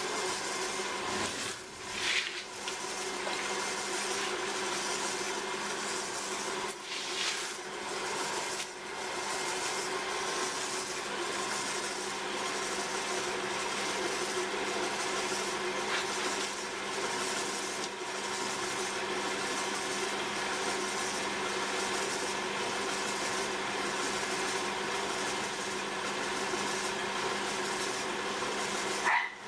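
Potter's wheel running with a steady motor hum, while wet hands rub and press against the spinning clay wall of a tall vase.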